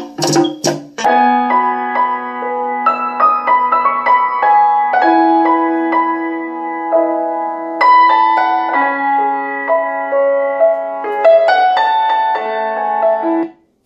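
Instrumental music played loudly through a pair of B&C 8PE21 8-inch midrange speakers. It opens with a few short percussive hits, then a keyboard-like melody of held notes follows, and it cuts out just before the end.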